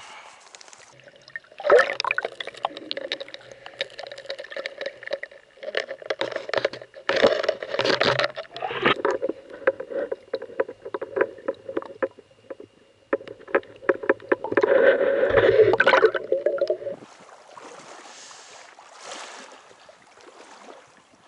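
Muffled gurgling and sloshing of stream water heard through a submerged action camera, thick with small clicks and knocks against the housing. It is loud from about two seconds in until a second or so before the end. Near the end it drops to a quieter steady hiss as the camera comes back to the surface.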